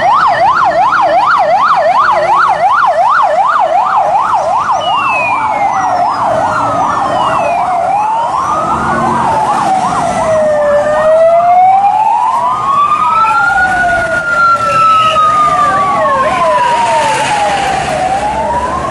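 Electronic sirens of a police convoy: several at once, first a fast yelp of about four sweeps a second, then overlapping slow rising and falling wails, with a short burst of yelp again near the end.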